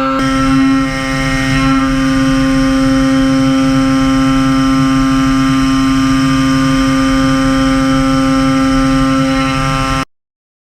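CNC milling machine spindle running a FRAISA Sphero-CVD ball-end mill while cutting, a steady high machining tone with overtones over a rumble. It cuts off suddenly near the end.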